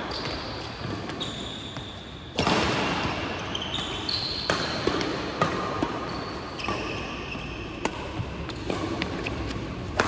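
Badminton rally: rackets striking a shuttlecock in sharp cracks every second or two, the loudest about two and a half seconds in, with shoes squeaking on the court floor between hits.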